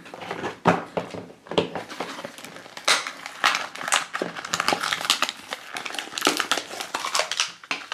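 Blind-box toy packaging handled and opened by hand: a cardboard box and plastic capsule crinkling and crackling in irregular rustles and clicks.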